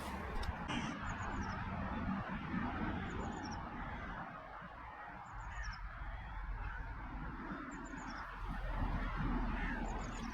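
Geese honking over a steady rushing background.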